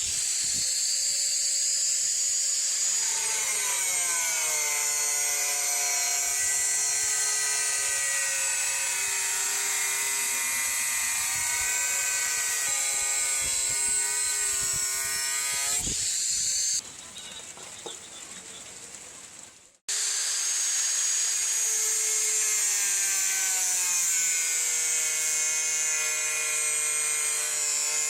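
Power grinder working the steel of a rebar knife blade: a steady motor whine whose pitch sags and recovers as it bears on the metal, over a grinding hiss. It drops away for a few seconds just past halfway, then starts again.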